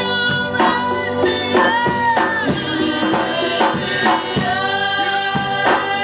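Gospel choir singing with a band of drums and guitar, held sung notes over a steady drum beat.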